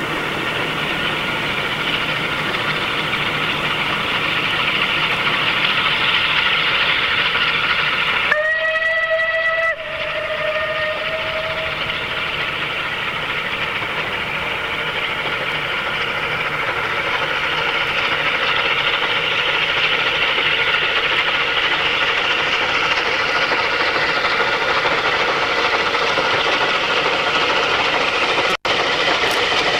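Unrebuilt Bulleid Battle of Britain class 4-6-2 steam locomotive working a train, its steady exhaust and running noise slowly growing louder as it approaches. About eight seconds in, its whistle sounds once for about a second and a half and then fades.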